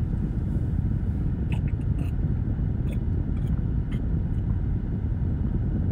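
Steady low rumble inside a car, with a few faint short clicks while a man drinks from a bottle of ginger drink.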